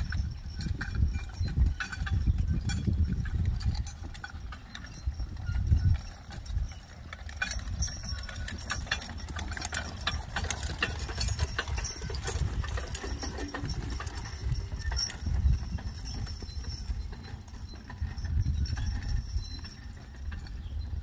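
Hoofbeats of a pair of draft horses trotting on grass, pulling a four-wheeled carriage. Harness and carriage rattle and click, most plainly around the middle as the team passes close.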